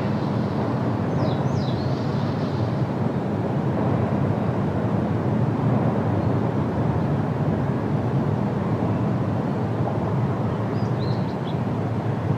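Steady low outdoor rumble, with a few short high bird chirps about a second in and again near the end.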